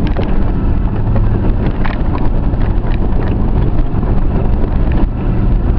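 Off-road vehicle climbing a rough trail in four-wheel-drive low: the engine runs steadily under load, with scattered knocks and rattles from the chassis and wind buffeting the microphone.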